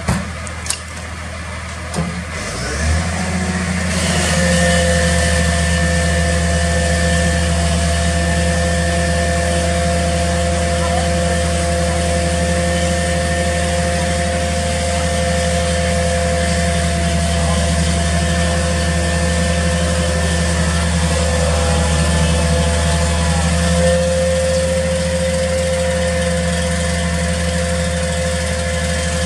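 Magirus turntable ladder fire truck's engine speeding up about three seconds in and running steadily at raised revs, with a steady multi-tone hydraulic whine joining it about a second later as the ladder works up in the tree.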